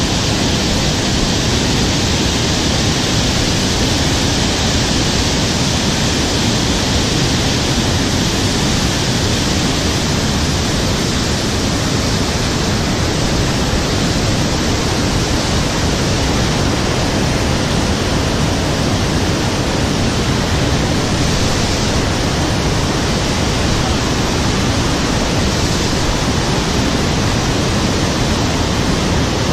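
Steady, loud rush of fast-flowing river water, an even hiss without change.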